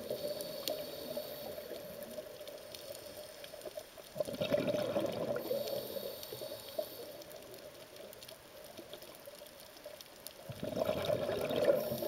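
Muffled underwater water noise with bubbling, swelling louder about four seconds in and again near the end.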